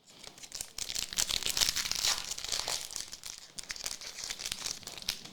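Trading card pack wrapper crinkling and tearing as it is handled and opened, a dense crackle lasting about five seconds.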